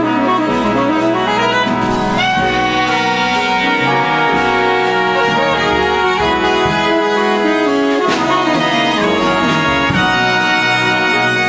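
Jazz big band playing live: a saxophone over the brass section, with trombones sounding sustained chords. Fresh ensemble accents come about two seconds in and again near eight seconds.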